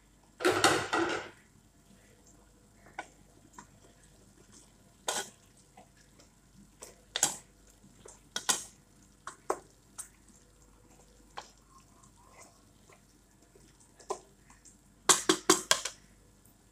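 Wooden spoon stirring raw potato chunks through thick curry masala in a cooking pot, knocking against the pot's side every second or two. A longer clatter comes about half a second in, and a quick run of loud knocks comes near the end.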